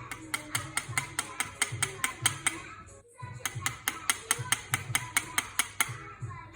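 Rapid, even tapping of a knife's back on an ostrich eggshell, about five sharp taps a second, with a short break about three seconds in.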